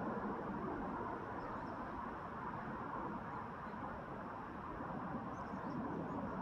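Steady background noise with a few faint, short, high chirps, like small birds, about a second and a half in and again near the end.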